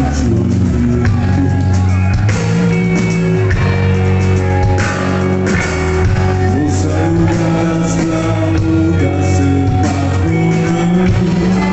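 A rock band playing live: electric guitar and bass over drums and cymbals, with a voice singing.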